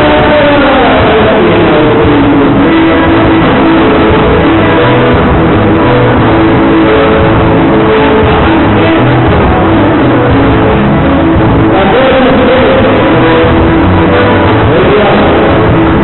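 Live band playing loud gaúcho dance music, with held melody notes over a regular bass beat.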